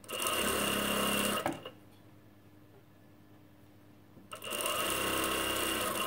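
Industrial single-needle lockstitch sewing machine (a plain sewer) stitching a small hem on a knit neckline. It runs steadily for about a second and a half, stops for nearly three seconds, then runs again from about four seconds in.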